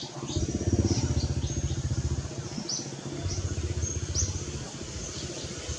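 A small engine running, with a fast pulsing low rumble that swells in about half a second in and eases off toward the end. A bird chirps over it, short high notes repeated every second or so.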